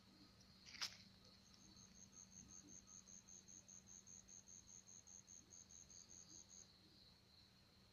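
Faint insect chirping in an even pulsing rhythm, about five or six chirps a second for several seconds, over a steady high thin trill, with one sharp click about a second in.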